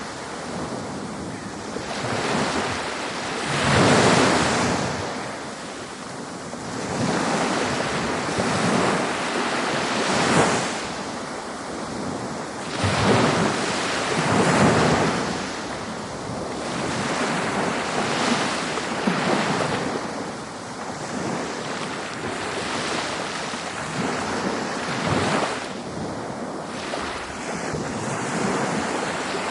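Ocean waves washing onto a beach, the surf swelling and receding every few seconds with a steady wash of noise between.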